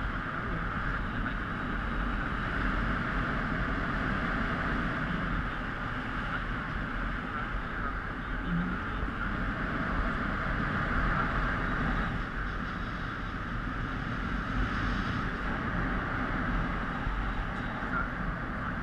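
Steady rush of air flowing past a helmet-mounted GoPro during paraglider flight: an even windy hiss over a low rumble.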